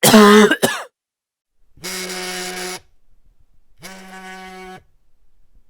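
A man's cough ends in the first second. It is followed by a cell phone vibrating: two steady buzzes, each about a second long, two seconds apart.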